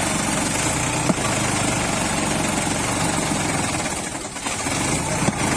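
Sonalika 45 HP tractor's diesel engine running steadily, with a sharp click about a second in and a brief dip in level about four seconds in.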